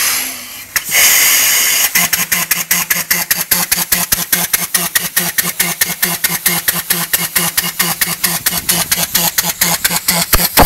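Briggs & Stratton 3 hp single-cylinder engine converted to run on compressed air: a loud rush of air about a second in, then the engine starts and runs with rapid, even puffs of exhaust air, about five a second, over a steady hum. The exhaust sounds odd, which the builder puts down to the cam timing being one click off.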